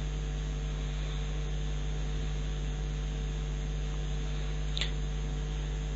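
Steady electrical mains hum with a faint hiss, the noise floor of the narration microphone's recording, with a brief faint hiss about five seconds in.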